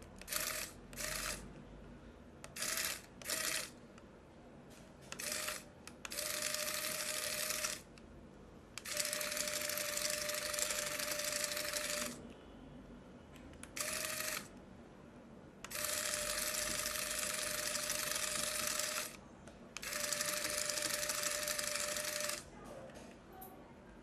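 Remote-control toy beetle's small electric motor and gears whirring as it crawls, starting and stopping with each press of the remote's buttons: a few short blips first, then longer runs of one to three seconds.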